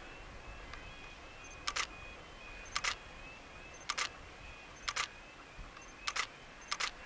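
Camera shutter firing six times at about one-second intervals, each shot a sharp double click.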